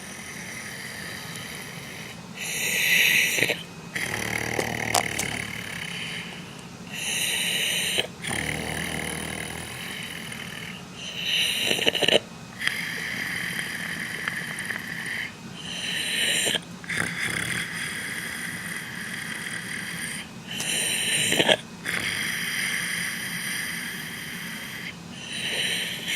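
A man snoring in his sleep: a loud snore roughly every four to five seconds, six in all, with a steady hiss between them.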